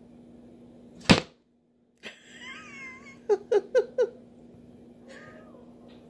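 A cat meows off-screen with a wavering, bending call about two seconds in, followed by four short quick sounds and a fainter brief call near the end. A sharp knock sounds about a second in, and a steady low hum runs underneath.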